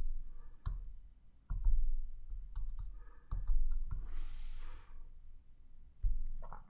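Typing on a computer keyboard: scattered keystroke clicks with dull low thumps, and a short hiss about four seconds in.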